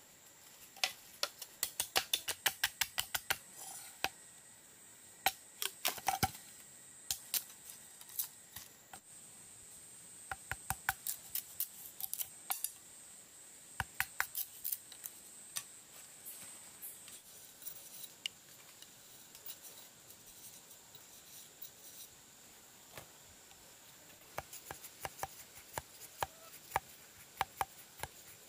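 Large knife blade shaving a thin bamboo arrow shaft, in bursts of quick, short scraping strokes that click sharply on the bamboo.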